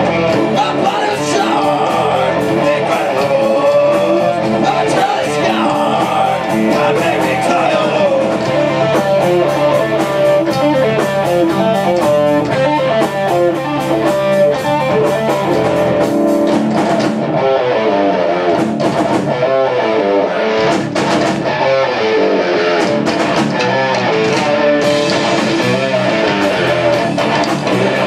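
A live heavy metal band playing: distorted electric guitar, bass guitar and drum kit, with some singing.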